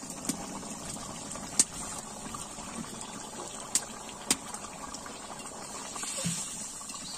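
Chicken curry bubbling at a boil in a large iron wok over a wood fire, a steady simmering hiss with a few sharp pops. Near the end a ladle stirs through the curry.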